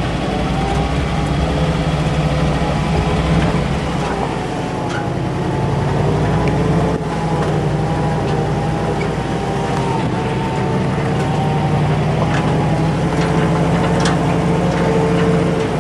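1950s Ford 4x4 pickup's engine running steadily while the truck drives slowly up a rocky dirt trail, its pitch wavering a little, with scattered clicks and knocks over it.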